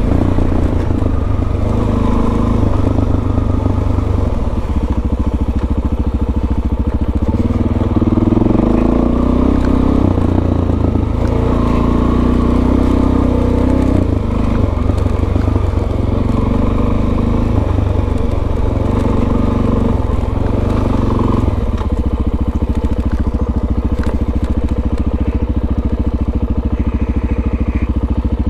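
Suzuki DR-Z400S single-cylinder four-stroke engine running under way. Its note shifts several times, then settles lower and steadier about 21 seconds in.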